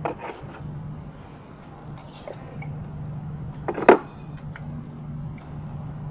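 Sharp knocks and clicks of parts being handled while ignition coil packs are swapped, the loudest just before four seconds in, over a steady low hum.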